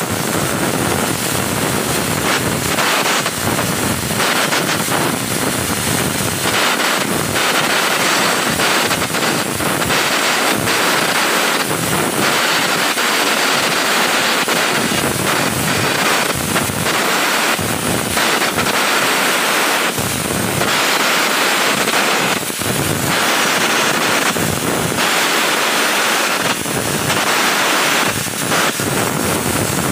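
Electric arc welding on a steel ship hull seam: a loud, steady hissing crackle that starts abruptly and keeps going with only small dips.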